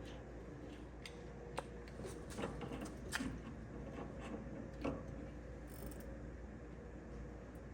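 A few irregular light clicks and taps, the loudest about two and a half to three seconds in and again near five seconds, from wheel hub parts and tools being handled. A low steady hum runs underneath.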